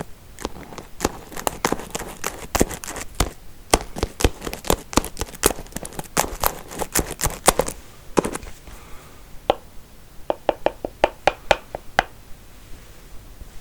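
Hair combs tapped and handled close to the microphone: a quick, irregular run of sharp clicks and taps that thins out after about eight seconds, then a short fast flurry of clicks a couple of seconds later.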